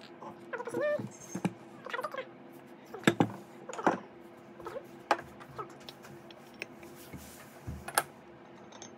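Porcelain teaware clinking and knocking as small cups and bowls are handled and set down on a table: a series of short, sharp clinks, the strongest a little after three seconds, near four seconds and at about eight seconds.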